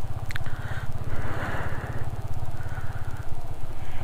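Motorcycle engine running at low revs with a steady low beat as the bike creeps over an icy, snow-packed road without braking. A hiss swells and fades a few times over it, and there is one short click just after the start.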